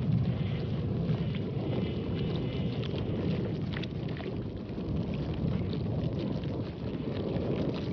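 Wind buffeting the microphone: a steady low rumble with a few faint crackles.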